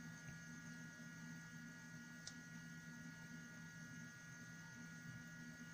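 Near silence with a faint steady electrical hum and a faint click about two seconds in.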